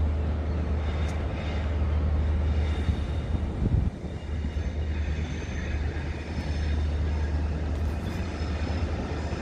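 A train at a station platform giving a steady low rumble, with faint high-pitched tones above it; the rumble drops out briefly about four seconds in.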